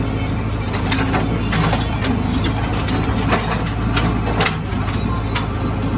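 Diesel engine of a JCB 3DX backhoe loader running steadily, heard from inside the cab, while the backhoe arm works in a trench, with irregular sharp knocks and clacks from the working machine, about eight in all.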